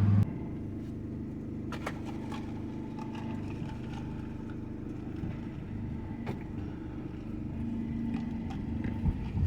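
Car engine idling with a steady low hum, and a few faint clicks.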